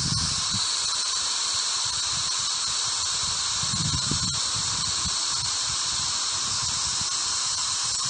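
Steady hiss of white-noise static from a Ghost Radio spirit-box app, with a faint thin tone running through it. A brief faint low sound breaks through the static about four seconds in.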